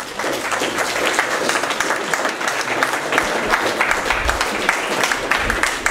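Audience applauding, starting suddenly and holding at an even level with many overlapping claps.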